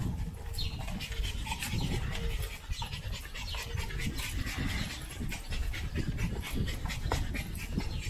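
A sled dog panting.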